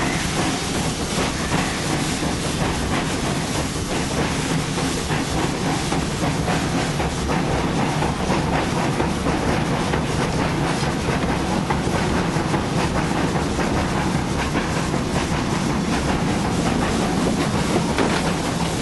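Steam train running along the line: a steady rumble and rush of noise with the irregular clatter of wheels over the rails.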